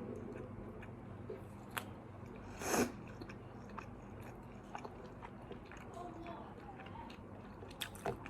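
Close-up chewing and biting of food, with small mouth and handling clicks, over a steady electric-fan hum. A short, louder noisy burst comes just under three seconds in.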